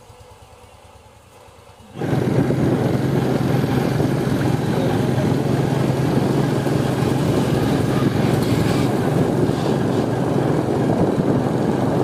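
A small vehicle engine, likely a motorcycle's, runs steadily under way with a low hum and rushing noise. It cuts in suddenly about two seconds in, after a quiet start.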